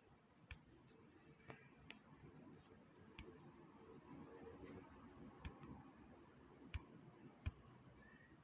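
Near silence: quiet room tone broken by about seven faint, sharp clicks at irregular intervals, the two strongest near the end.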